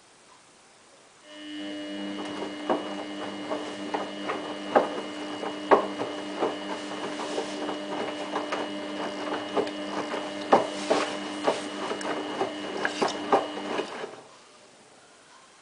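Samsung WF8804RPA front-loading washing machine turning its drum with a load of jeans: a steady motor hum with a high whine and irregular clicks and knocks. It starts abruptly about a second in and stops abruptly about twelve seconds later.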